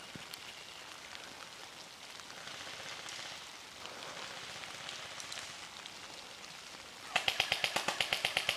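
An airsoft gun firing full-auto: a fast, even string of sharp cracks, about ten a second, beginning about seven seconds in. Before it, only a faint steady hiss in the woods.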